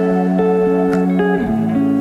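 Instrumental intro music, with held notes and chords changing every half second or so.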